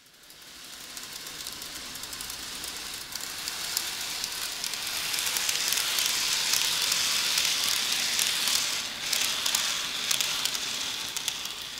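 N-gauge model train running past on a curved elevated track: a hissing rolling noise dotted with fast little clicks from the wheels. It builds to its loudest a little past the middle as the train passes close, then eases off.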